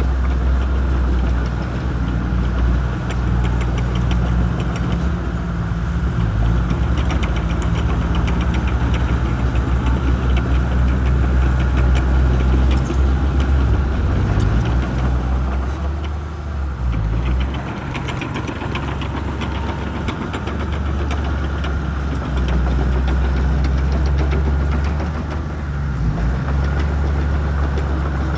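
Shantui crawler bulldozer's diesel engine running hard and steady, with a light clatter over it; the engine eases off briefly about two-thirds of the way in and again near the end.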